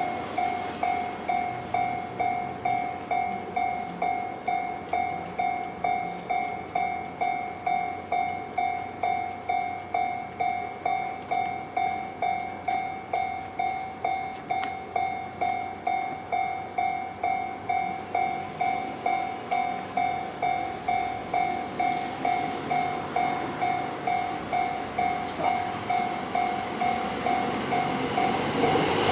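Japanese level-crossing warning bell ringing, an electronic two-tone ding repeating evenly about twice a second. In the last several seconds the rumble of an approaching train grows beneath it.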